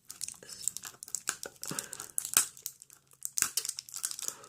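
Crinkly toy blind-bag packet being crumpled and pulled at by hand while trying to tear it open, with irregular sharp crackles of the wrapper.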